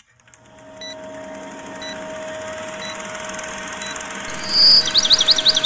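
Old film projector whirring steadily, with a faint short beep about once a second. About four seconds in a loud high whistle sounds, followed by a bird chirping in quick rising notes.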